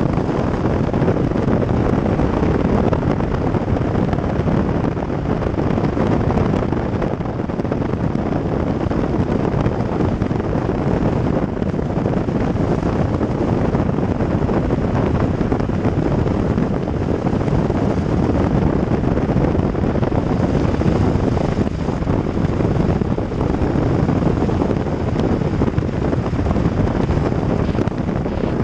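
Steady wind buffeting a camera mounted on the outside of a moving car, mixed with tyre and road noise on wet asphalt.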